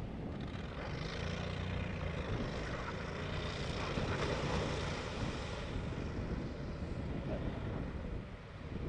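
Argo Avenger eight-wheeled amphibious UTV running, its engine humming as it drives off a gravel bar into a river. About three seconds in there is a rush of splashing water as it enters, and then it runs on afloat.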